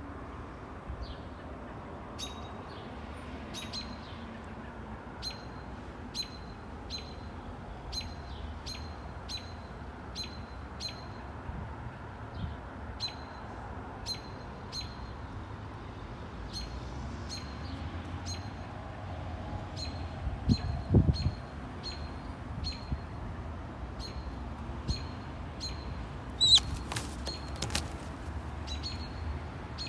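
Red-tailed hawk giving its begging call, a short high call repeated steadily about one and a half times a second. A low thump comes about two-thirds of the way through, and near the end a burst of wing flaps as the hawk takes off.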